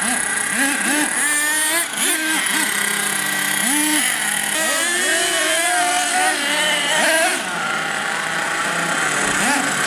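Radio-controlled monster trucks driving on asphalt, their motors revving up and down over and over.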